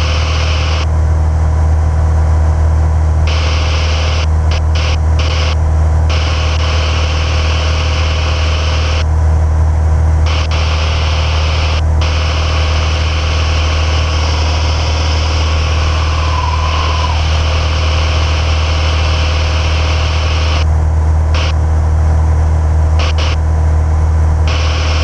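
Single-engine Piper Cherokee's four-cylinder engine and propeller droning steadily in flight. A hiss over the drone switches on and off abruptly several times.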